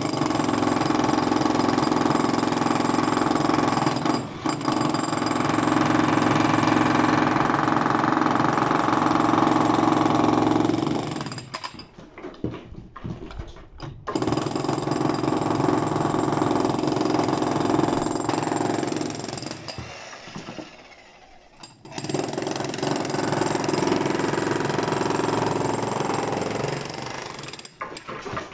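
Dongcheng electric demolition hammer with a chisel bit pounding and breaking up a hard reinforced concrete floor slab. It runs in three long bursts, stopping briefly about 11 seconds in and again about 20 seconds in.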